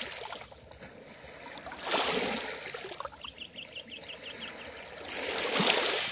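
Small lake waves lapping and washing up onto a pebbly shore, swelling twice, about two seconds in and again near the end. A quick run of about nine high chirps sounds a little after three seconds.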